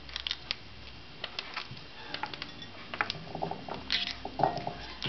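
Conure biting and shredding a raw carrot slice with its beak: irregular sharp crunches and clicks, coming faster after about three seconds.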